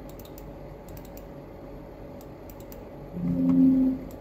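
Computer mouse clicking: several sharp clicks, some in quick pairs, as folders and a file are opened in a file dialog. About three seconds in, a brief low tone in two pitches, louder than the clicks.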